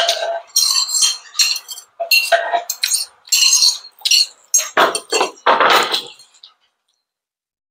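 Cutlery clinking and scraping on a plate and on a wooden board, a quick run of short clicks and scrapes. About five seconds in come heavier knocks and a slide as the wooden board is laid down on the wooden table.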